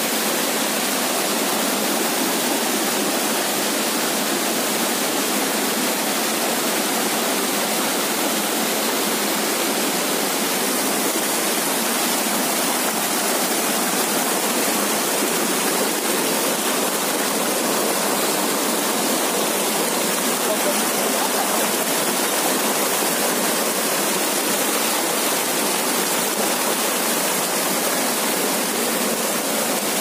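Waterfall pouring steadily: an even, unbroken rush of falling water, with almost no low rumble.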